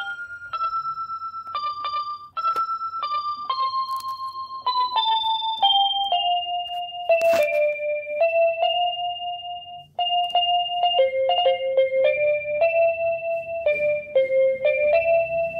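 Background music: a simple electric-piano melody played one note at a time, stepping down and then back up, each note with a quick wavering tremolo.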